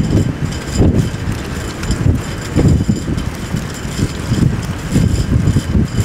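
Strong gusty wind buffeting the microphone, a low rumble that surges and drops every second or so.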